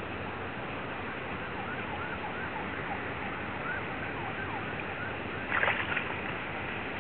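Steady wind and water noise at the water's edge, with a run of faint short chirps, then a brief splash in the water about five and a half seconds in.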